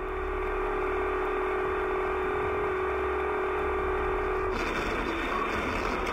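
A train horn sounds one long steady blast from the cab of an Amtrak train bearing down on a crossing. About four and a half seconds in the horn cuts off as the train strikes a fire truck parked on the tracks, and a rough crash-and-rush noise follows.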